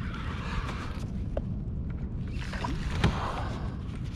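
Water lapping against a plastic kayak hull over a low, steady rumble, with one sharp knock about three seconds in.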